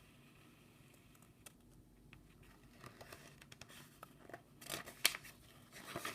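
Paper pages of a picture book being handled and turned: faint rustling with a few light clicks, growing louder and busier in the second half.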